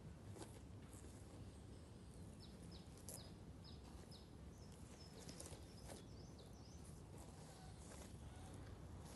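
Near silence: a faint low rumble of background noise, with a bird giving a run of short, high, falling chirps from about two to six and a half seconds in, and a few faint ticks.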